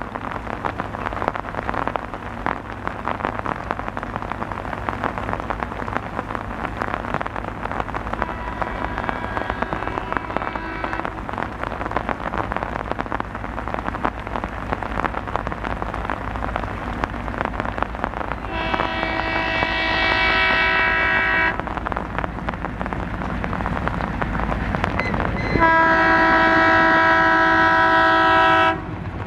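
Steady heavy rain with an approaching diesel locomotive's multi-tone horn blowing three times, the first faint, the second louder, and the last the loudest, about three seconds long and cut off sharply.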